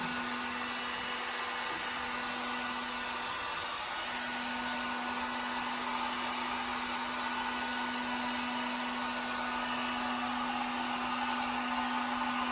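Electric heat gun running steadily, its fan blowing a constant whooshing hiss with a steady motor hum, as it heats a PVC pipe coupling to soften it.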